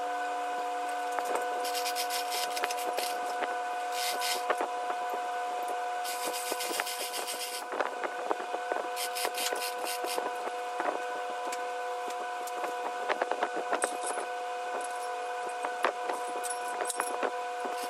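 Steel hoist chain rattling and clinking in irregular bursts as it is wrapped around and pulled to lift a cast-iron John Deere Type E hit-and-miss engine. A steady droning tone runs underneath throughout.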